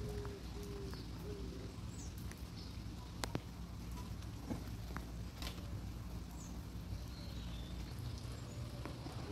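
Light rain with a steady patter and scattered sharp drips, and birds calling now and then, including a run of short, low repeated calls near the start.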